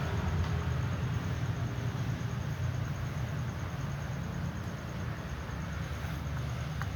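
Steady low background rumble with a faint hiss.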